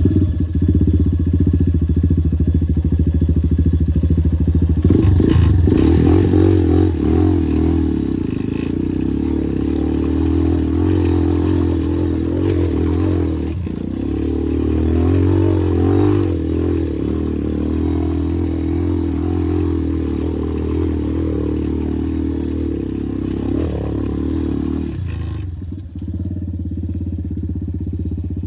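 Motorcycle engine running steadily, its pitch wavering a little with the throttle, then settling into a plainer, steadier run about three-quarters of the way through.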